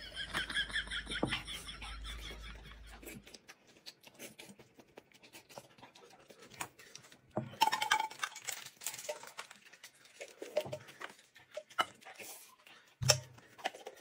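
Light tableware handling: scattered clicks and clinks of chopsticks against bowls, with a sharp thump about a second before the end. It opens with a few seconds of a high wavering whine over a low hum.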